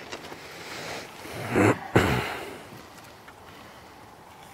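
Two short, breathy vocal sounds from a person, without words, close together near the middle.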